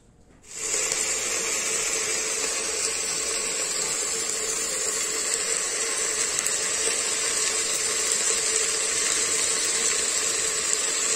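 Water running steadily, turned on about half a second in, with a steady tone under the rush of water.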